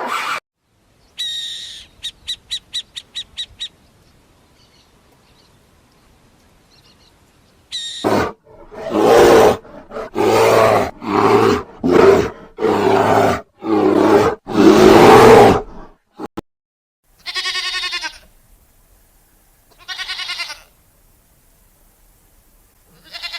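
A string of animal calls, the loudest a lion roaring: a series of about seven loud, deep roars roughly a second apart. Before it comes a quick run of about eight high chirps, and after it two shorter calls.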